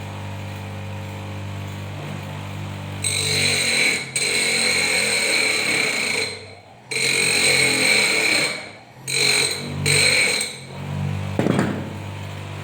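Small high-speed power tool run in about five bursts with a high-pitched whine, each starting and stopping abruptly, as a car window regulator part is trimmed to fit; a low steady hum before the first burst.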